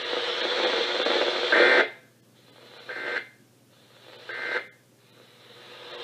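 Weather radio receivers hissing, then three short warbling two-tone data bursts about 1.3 s apart, with near silence between them: the SAME end-of-message code that closes a NOAA Weather Radio alert broadcast.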